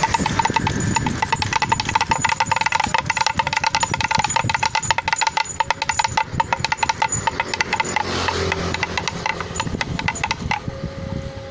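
Wind-driven whirligig with a bird figure pecking a small gong: a rapid, continuous run of ringing taps that stops suddenly about ten and a half seconds in.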